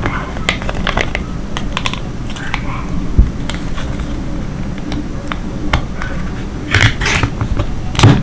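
Plastic toy packaging being handled during an unboxing: irregular small clicks, taps and crinkles, with a couple of sharper knocks near the end.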